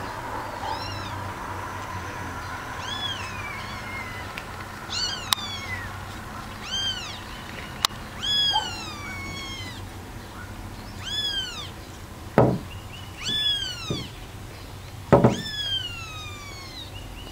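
A newborn kitten mewing over and over: about eight high-pitched calls that rise and fall, roughly every two seconds. Two dull thumps, louder than the mews, come in the last third, with a couple of sharp clicks earlier.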